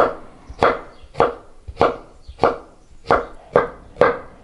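Chef's knife slicing zucchini, then yellow bell pepper, into thick julienne strips on a wooden cutting board. The blade knocks on the board at an even pace, about eight cuts, a little under two a second.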